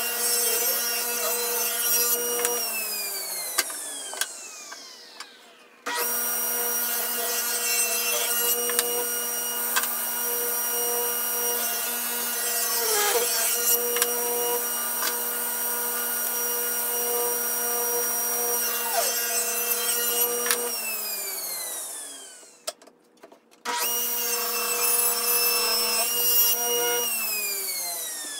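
Table saw ripping narrow hardwood strips: the motor and blade run with a steady whine, with rougher cutting noise whenever a board goes through. The saw is switched off and spins down, its whine falling, three times: a couple of seconds in, about two-thirds of the way through and near the end. It restarts twice in between.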